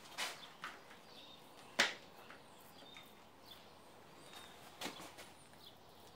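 A few light clicks and knocks, the loudest about two seconds in, from handling a small paint roller while reloading it with paint. Faint, brief bird chirps in the background.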